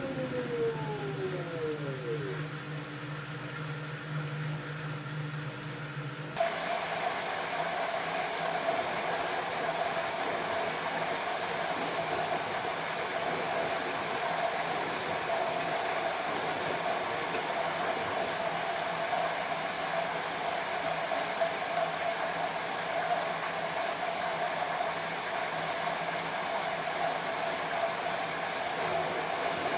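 LG F10B8QD1 direct-drive washing machine: the motor's whine falls in pitch as the drum slows, leaving a steady low hum. About six seconds in this cuts off suddenly into a steady rushing hum with a constant tone that runs on unchanged.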